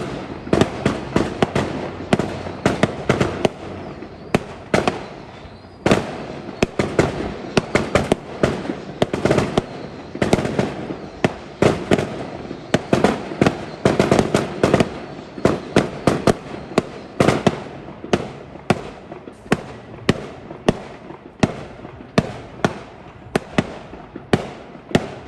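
Fireworks going off in a rapid, unbroken run of sharp bangs and crackles, several a second.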